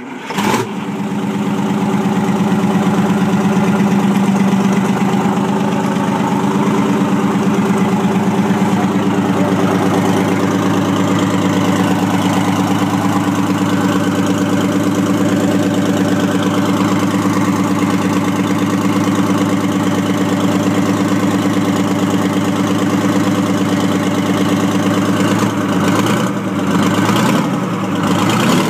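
Two-stroke Detroit Diesel truck engine running steadily at idle. It grows louder over the first couple of seconds, and its note wavers a little near the end.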